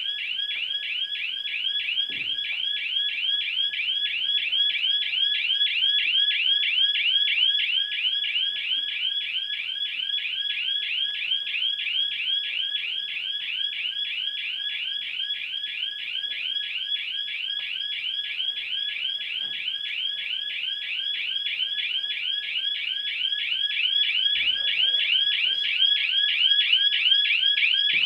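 Electronic alarm sounding continuously: a high-pitched warbling tone that sweeps and repeats several times a second without a break.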